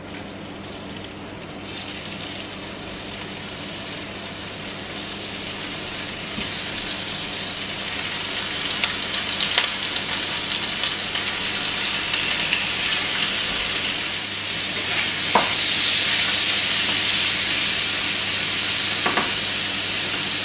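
Strips of raw chicken sizzling in hot olive oil in a frying pan. The sizzle grows steadily louder as more pieces go in, with a few brief clicks.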